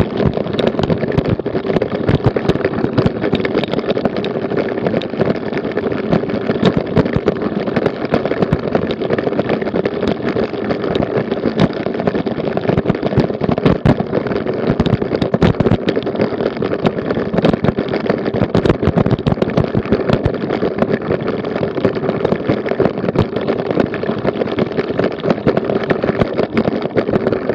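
Bicycle rattling over cobblestones, picked up by a Garmin VIRB action camera riding on it: a continuous, dense clatter of jolts over a steady rumble.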